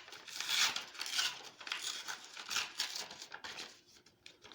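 Paper and packaging rustling and crinkling as a package is handled, in quick noisy bursts that die down after about three and a half seconds.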